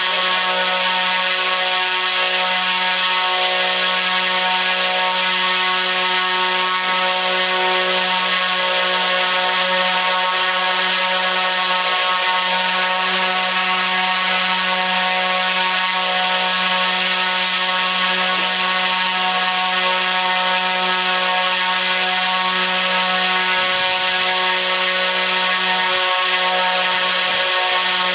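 T-Motor U13 100 kV brushless motor spinning a 29-inch three-blade propeller at full throttle on 12S power, during a long endurance run. It makes a steady low hum with a dense, even whine of many pitches above it, holding the same speed throughout.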